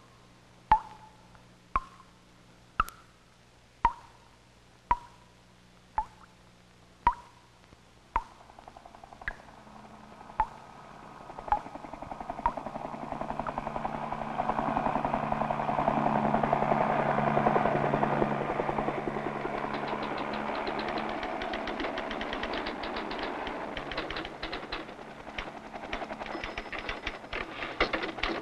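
City street noise: sharp ringing plinks about once a second die away as a broad wash of traffic-like street noise swells up. About twenty seconds in, a fast mechanical rattle joins it.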